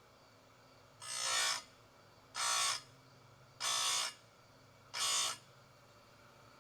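Oregon 410-120 chain grinder's abrasive wheel grinding chainsaw chain cutters: four short grinds, each about half a second, at an even pace about 1.3 s apart, over the faint steady hum of the grinder's motor.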